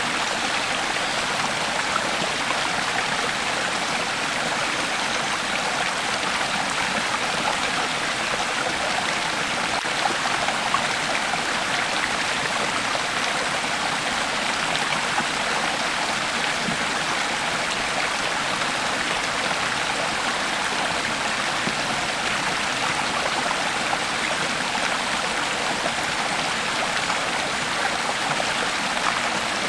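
Creek water flowing steadily over rocks, a continuous rushing and babbling with small splashes.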